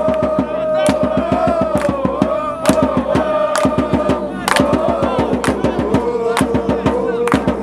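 Music with a fast, even drumbeat under one long held tone that wavers slowly and drops in pitch about five seconds in.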